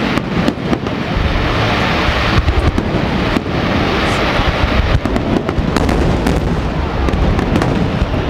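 Fireworks finale: aerial shells bursting in a rapid, continuous barrage of booms and crackles, heard from a distance, with bursts packing closer together in the second half.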